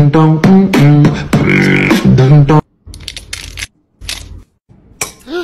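Vocal music with a beatbox-style rhythm that cuts off abruptly about halfway through. After the cut come a few short crinkling sounds from a foil packet being handled, and a brief pitched sound that rises and falls near the end.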